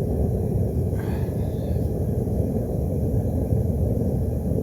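Steady low roar of a single-burner forge running, with no hammer blows.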